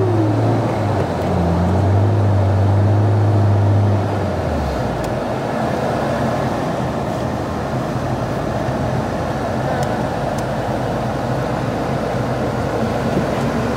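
Engine of a 1990 AWD turbo DSM (turbocharged 4G63) running in a steady low drone that drops away about four and a half seconds in. A continuous rushing noise runs underneath.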